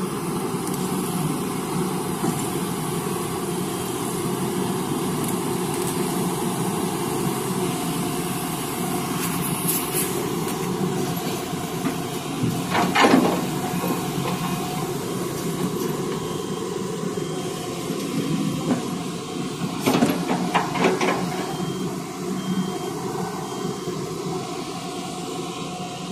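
Hyundai Robex 215 tracked excavator's diesel engine running steadily under load, with loud crashes of broken rock dropping into a steel tipper-truck bed about halfway through and again twice about two-thirds of the way in.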